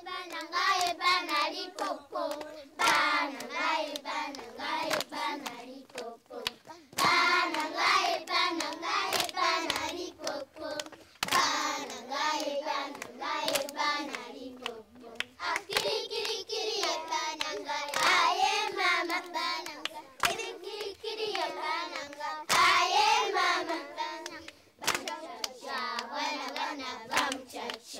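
A group of children singing an action song together, with hand claps through the song.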